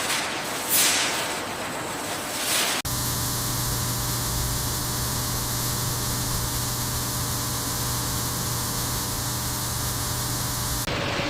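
Factory machinery running: a steady hiss with a low hum and faint steady tones. It follows an abrupt cut from a noisier passage that holds two whooshes.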